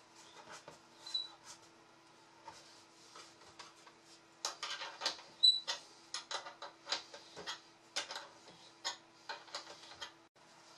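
Irregular clicks, taps and scrapes of hand-work with a small metal tool on the seat fittings of an upturned wooden bentwood chair, sparse at first and coming thick and fast from about halfway, with a couple of short high squeaks. A faint steady hum runs underneath.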